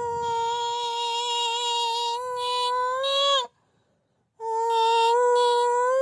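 A high voice holds one long steady note for about three and a half seconds, bending upward just before it cuts off. After about a second of silence the same held note starts again.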